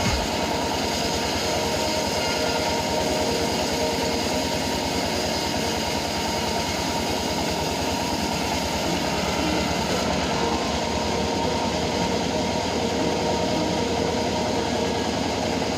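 Homemade band sawmill running steadily: a continuous mechanical drone with a rapid, even pulse.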